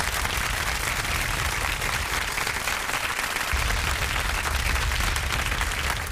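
Applause: a dense, steady spell of clapping, with a low bass running underneath that drops out briefly about three seconds in.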